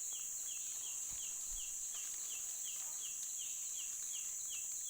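Steady high-pitched insect drone, with a short chirp repeating evenly about three times a second over it.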